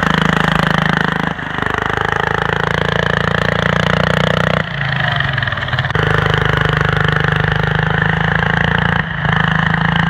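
Diesel engine of a Ford garden tractor running steadily under load as the tractor spins through deep snow, its drone dipping briefly three times.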